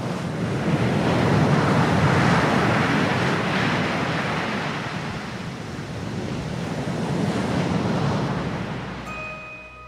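Ocean surf: a steady rush of breaking waves that swells twice and fades near the end, as a few held music notes come in.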